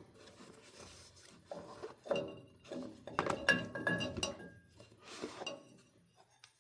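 Metal oil furnace filter canister and its parts clinking and knocking as the canister is taken apart and drained of oil. Several light knocks, with one clink ringing briefly about three and a half seconds in.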